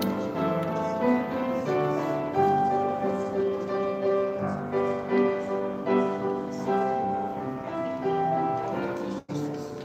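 Grand piano played live, with sustained chords and melody notes changing every half second or so. The sound drops out suddenly for a moment near the end.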